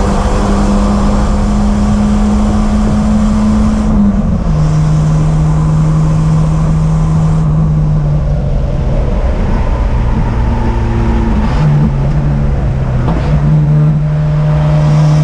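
In-cabin sound of a 1991 Volvo 240 race car's 2.3-litre four-cylinder engine pulling at full throttle near 6,000 rpm, its pitch stepping down about four seconds in as it shifts up. A few seconds later it comes off the throttle and the revs sink as the car slows, then rise sharply twice as it downshifts, and the engine comes back on the throttle near the end.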